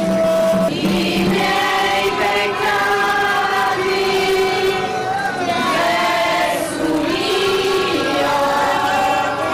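A crowd of women and children singing a slow hymn in unison, with long held notes gliding from one to the next. A steady low tone underneath stops about a second in.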